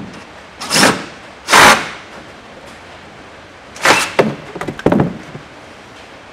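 Yellow cordless drill/driver run in short bursts to back out the small bolts at the base of a car's C-pillar trim: two short bursts about a second apart, then a stuttering run of bursts around four to five seconds in. A steady hiss of rain on a metal roof runs underneath.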